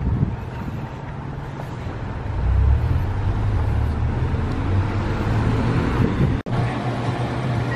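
Road traffic noise on a city street, a steady low rumble that swells a little about two seconds in, with a car passing near the end.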